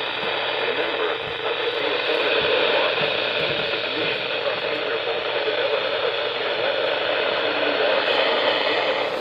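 Steady static hiss from a weather radio receiver on a weak broadcast signal.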